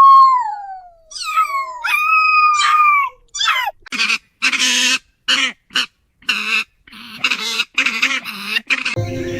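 Cartoon animal sound effects: a few falling, wavering cries, then a run of about ten short, harsh calls over some five seconds.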